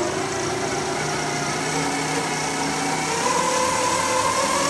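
Triple AstroFlight 3220 brushless motor unit with its belt-drive reduction running on the bench: a steady high-revving whine that climbs slightly in pitch toward the end as it speeds up.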